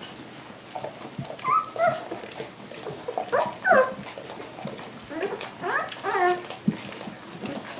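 American water spaniel puppies, about three weeks old, whimpering and squealing in short high calls, in clusters about a second and a half in, around three and a half seconds, and again near six seconds, as they crowd under their mother to nurse.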